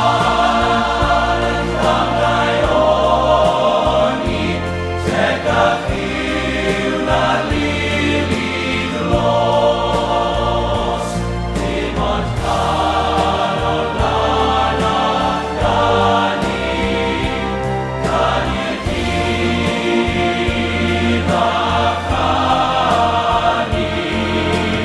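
Background music: a choir singing long, held phrases over a steady low bass accompaniment.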